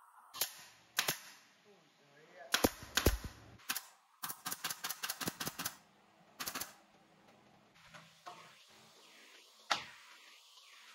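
Pneumatic brad nailer firing nails into wooden slats: single sharp shots spaced about a second apart, then a quick run of about ten shots in a second and a half near the middle, then a few more.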